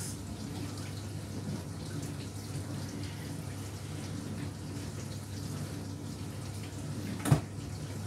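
Indesit dishwasher running a wash: a steady pump hum with water running and splashing inside the tub. One sharp knock about seven seconds in.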